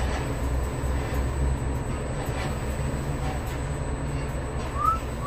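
Steady low rumble of construction-site background noise, with a few faint knocks. Near the end there is one short, high squeak that rises and falls.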